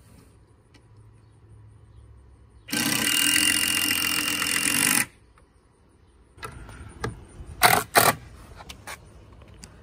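Cordless drill driving screws into wooden gussets on a 2x4 frame: one steady run of about two and a half seconds that stops abruptly, then a few short bursts.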